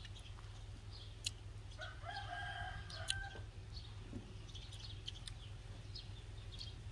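A rooster crows once, starting about two seconds in and lasting about a second and a half. A few faint sharp clicks are scattered around it.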